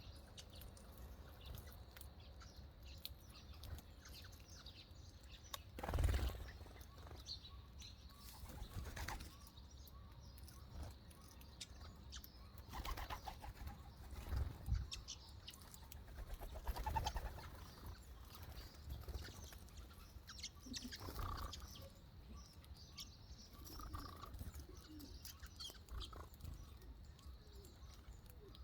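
Birds chirping and calling faintly, with scattered louder bird sounds, the loudest about six seconds in.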